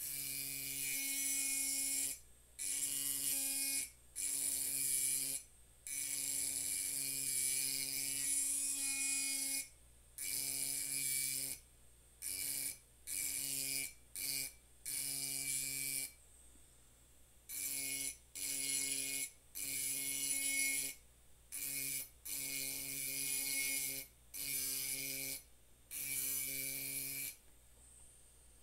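A handheld rotary engraving tool's fine bit grinding into a glass bottle: a steady hum with a high, gritty hiss. It starts and stops over and over, in runs from a fraction of a second to a few seconds long.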